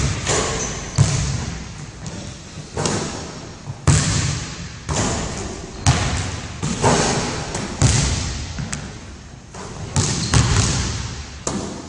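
A basketball thudding and bouncing on a hardwood gym floor, sharp hits roughly once a second, each with an echoing tail.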